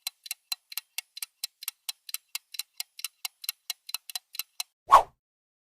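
Clock-ticking countdown timer sound effect, fast and even at about four to five ticks a second. It stops, and a moment later comes one short, louder hit, which marks the end of the countdown.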